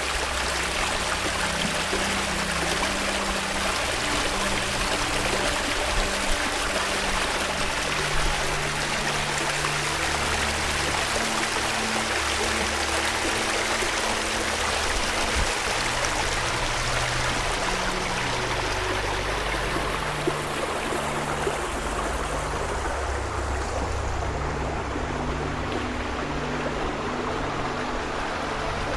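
Steady rush of moving water under soft background music with held low notes. The high hiss fades in the second half.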